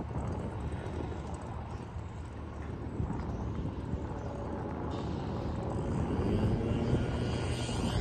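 Distant engine drone that slowly grows louder in the second half, over a steady outdoor rumble.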